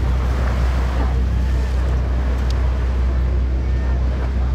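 Ferry's engine running with a steady low drone, over the rush of water along the hull and wind on the microphone.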